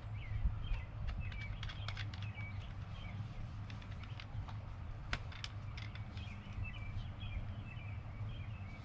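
Small birds chirping over and over, with scattered sharp clicks and light knocks from parts being handled, over a steady low hum.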